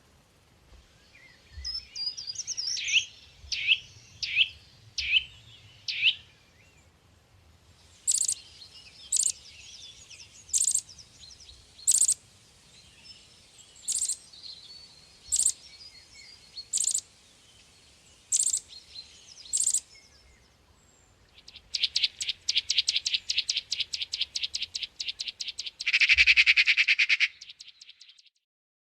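White-eye (pleci) calling: a few quick falling chirps, then a run of sharp single calls about every second and a half, then a fast trill that ends in a louder buzzy burst near the end.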